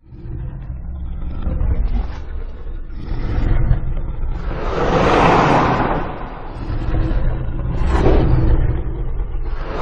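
Godzilla monster sound effect: a deep low rumble runs throughout, with loud noisy surges swelling about five seconds in, around eight seconds, and again at the end.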